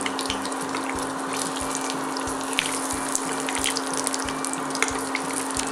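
Oil sizzling and crackling steadily in a frying pan around a stuffed meatloaf as it fries, with soft background music underneath.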